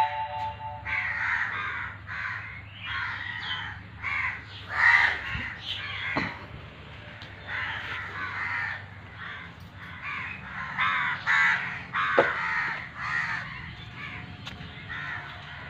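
Crows cawing again and again, about one call a second.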